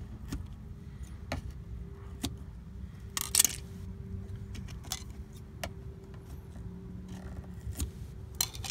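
Scissors snipping and clicking as they trim the end of a rubber bumper lip strip: a handful of sharp, separate clicks, the loudest cluster about three seconds in, over a steady low hum.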